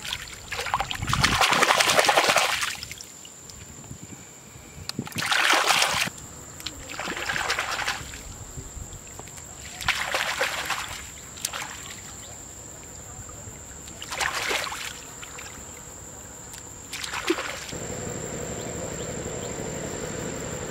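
Hands splashing and sloshing in shallow muddy water, in about six separate bursts a few seconds apart, while groping for eels in the weeds. Near the end a steady low hum like an idling engine sets in.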